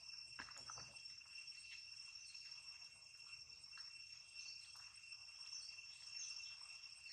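Faint, steady, high-pitched insect drone at two pitches, with a few faint chirps scattered through it.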